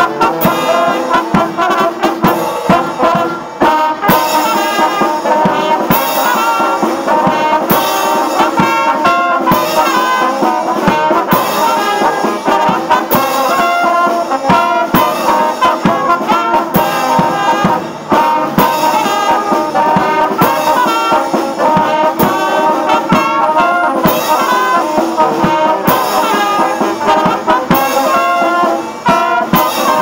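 Small brass band playing live: saxophones, trumpets, trombone and flute in a jazzy tune over a steady drum beat, with a cymbal crash about every two seconds.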